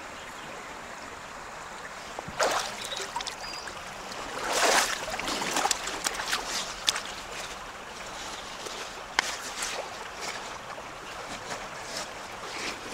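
Shallow river water splashing and sloshing as a large freshwater mussel is lifted out and handled, with a big splash about five seconds in. A few sharp clicks follow later.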